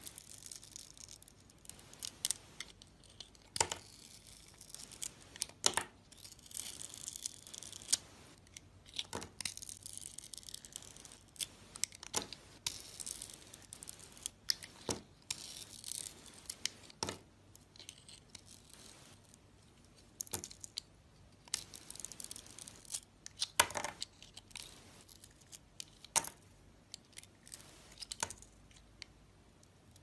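Snap-off utility knife blade cutting into bars of soap: a string of crisp cuts and scraping strokes.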